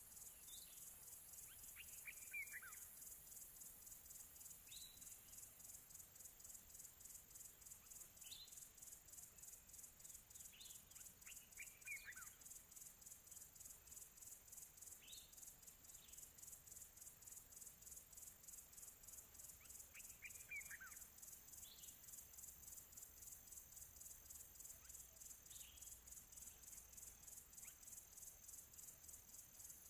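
Faint steady high trill of crickets, with short falling bird calls repeating every few seconds.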